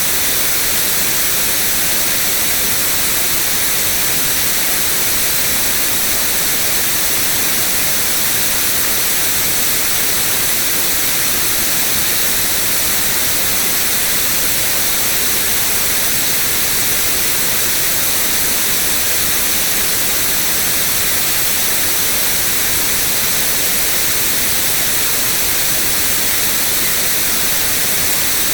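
Steady synthetic white noise: an even, unbroken hiss, brighter in the high frequencies.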